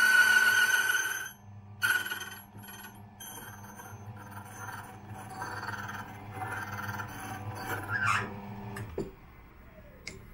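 Electric key-duplicating machine: a loud high-pitched whine that stops about a second in, then the motor running with a steady hum and the cutter scraping along the key blank. About nine seconds in the machine is switched off and winds down.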